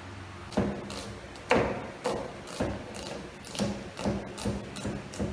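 Kitchen knife knocking on a plastic cutting board while an onion is cut: about ten separate, uneven knocks, the loudest two in the first second and a half.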